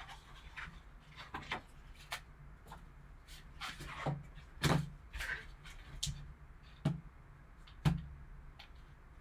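Hands handling trading-card box packaging: scattered taps and clicks with short rustles of cardboard and wrapping, the sharpest knocks about halfway through and near the end.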